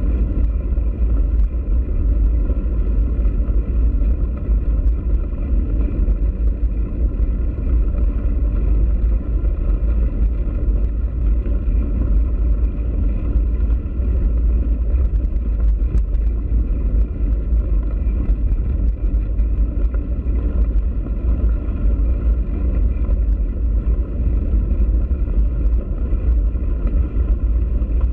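Steady low rumble of wind buffeting a bike-mounted camera's microphone while riding, mixed with bicycle tyres rolling over gravel and a few faint ticks.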